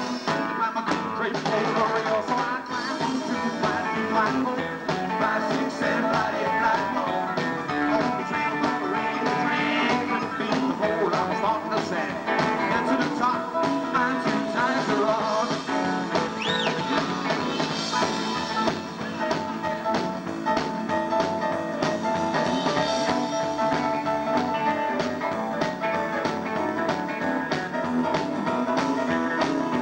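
Live rock and roll band playing a rockabilly number: acoustic guitar and upright double bass over a steady beat, with a man singing.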